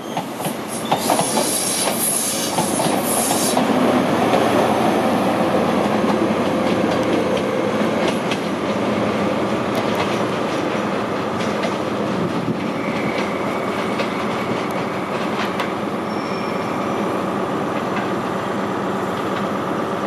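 An HST (InterCity 125) pulls out of the station. Its coaches' wheels rumble and clack over the rail joints, with a high wheel squeal in the first few seconds. Thinner squealing comes back in the last several seconds as the train, led off by its rear diesel power car, runs onto the curves.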